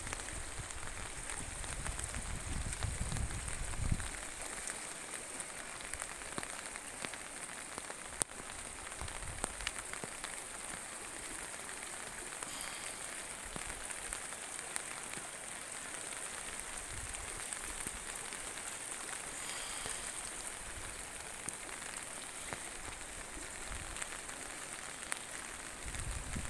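Steady hiss of a flooded, muddy stream rushing and churning under a stone bridge, with low buffeting on the microphone in the first few seconds.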